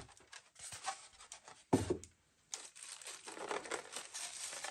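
Plastic wrap crinkling and rustling around a resin bust as it is handled in a styrofoam packing tray, with a single dull knock a little under two seconds in; the crinkling grows denser over the second half.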